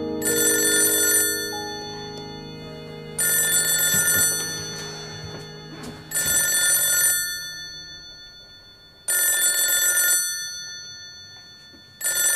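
Telephone ringing with an electronic ring: four rings about three seconds apart, each lasting about a second, and a fifth starting near the end.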